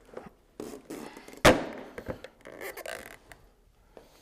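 A sharp thunk about a second and a half in as a vinyl purlin holder is knocked down onto the ends of vinyl pergola purlins. Lighter knocks and rattles of the vinyl pieces come before and after it.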